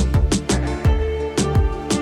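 Background music with a steady beat, about two beats a second, and held instrumental notes.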